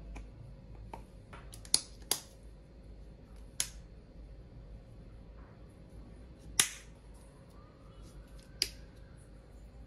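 A handful of sharp, irregular clicks and knocks, like small objects being handled and set down, five of them louder than the rest. A faint rising tone starts near the end.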